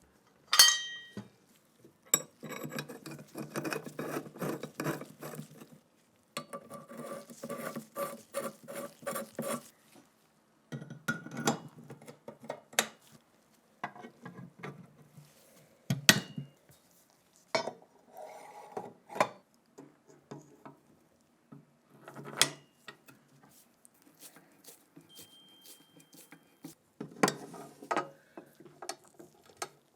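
Metal parts of an MG-81 machine gun being handled and fitted together: stretches of clinking and scraping, broken by sharp single clicks, with short quiet pauses between.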